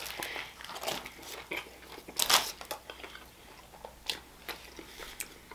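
Close-miked biting and chewing of a sandwich, with wet mouth clicks and a few crinkles of its paper wrapper. The loudest crunchy bite comes a little over two seconds in.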